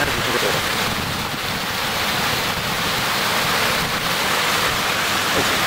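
Steady rush of running water in a concrete trout-hatchery raceway.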